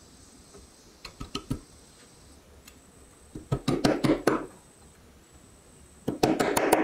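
Ball-peen hammer tapping on a small red-painted metal toy part: a few light taps about a second in, then two bursts of quick, harder taps, one near the middle and one near the end.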